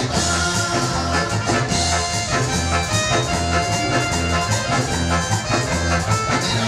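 Latin dance music, likely cumbia, with brass over a steady repeating bass line.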